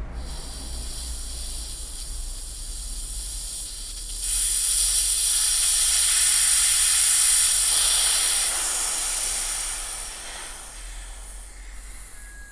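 Air hissing out of a pressure brake bleeder's tank as it is vented after the bleed, letting off the last of its pressure. The hiss gets louder about four seconds in and fades away over the last couple of seconds.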